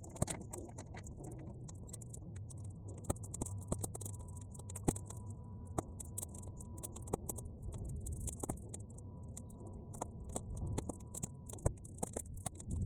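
Bonfire of half-dry weeds burning, crackling with irregular sharp pops over a low steady rumble of wind.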